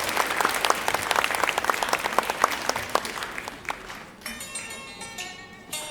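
Audience applauding, thinning out over about four seconds, then music starts.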